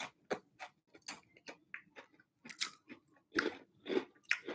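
Blue Takis rolled tortilla chips being bitten and chewed close to the microphone: an irregular run of short, sharp crunches.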